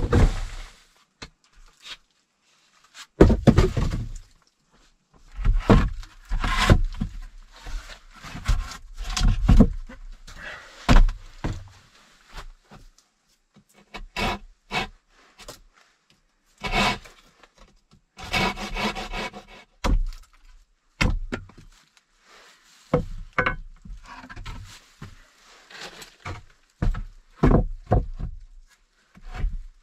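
Irregular wooden knocks, thuds and scraping, a dozen or so separate noises with short pauses between them.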